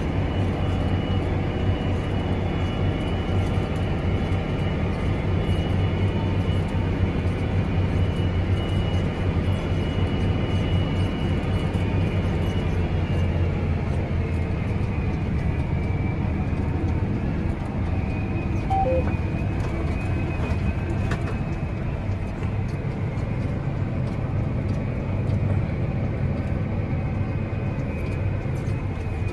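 John Deere 8R 410 tractor's six-cylinder diesel engine heard from inside the cab: a steady low drone under load while pulling a tillage implement, with a faint high whine over it. About two-thirds of the way in, two short tones sound, the second lower than the first.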